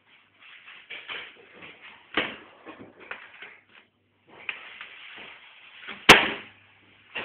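A giant continental rabbit scrabbling on a hard floor and knocking a brush about: a run of scrapes and taps, then one sharp bang about six seconds in, the loudest sound.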